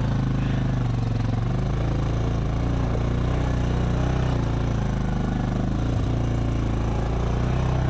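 ATV engine running steadily at low revs as the quad crawls along a rutted trail, its pitch sagging a little midway and picking up again near the end. A single light knock about six seconds in.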